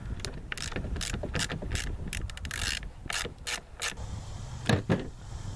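Ratchet wrench clicking in short runs as a 10 mm bolt holding the melted plastic front cover on a Honda F22B1 VTEC cylinder head is backed out. Two sharp knocks come near the end.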